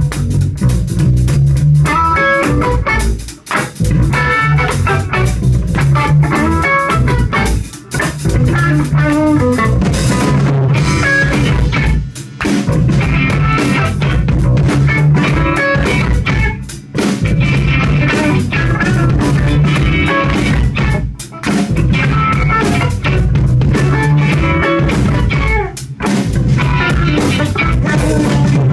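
Live rock band playing an instrumental passage loudly on electric guitar, bass guitar and drum kit. The riff stops briefly every four or five seconds.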